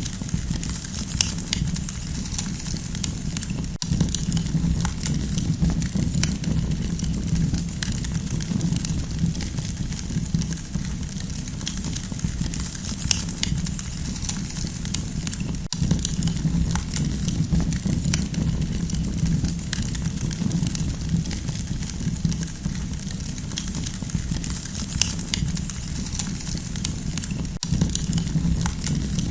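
Campfire burning, with many small irregular crackles and pops over a steady low rumble.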